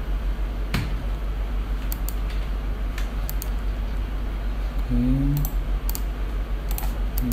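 Scattered single clicks of a computer keyboard and mouse being operated, about eight in all, over a steady low hum.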